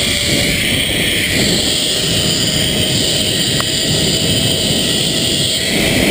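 Zipline pulley trolley running fast along a steel cable: a steady high whir over a heavy rush of wind on the microphone.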